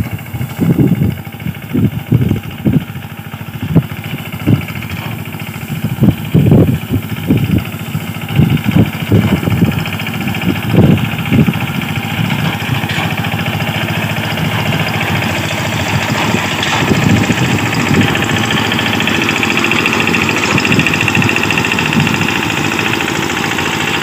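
Diesel engine of a small self-propelled wheat reaper-binder running as it cuts standing wheat, with irregular low thumps through the first half; the engine grows louder and steadier in the second half as the machine comes close.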